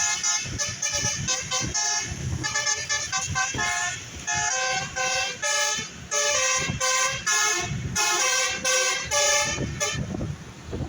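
Bus 'telolet' multi-tone horn playing a fast tune of short, clipped notes that jump in pitch, with brief breaks about 2 and 4 seconds in.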